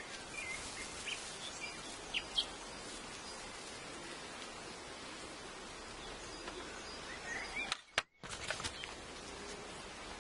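Steady hum of honeybees around an open beehive, with birds chirping now and then. A few sharp knocks come around eight seconds in.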